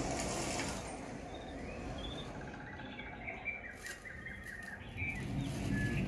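Forest sound effects from a Dolby Atmos demo soundtrack: a rustling hiss that fades in the first second, then scattered short bird chirps and twitters with a few sharp clicks, over a low rumble.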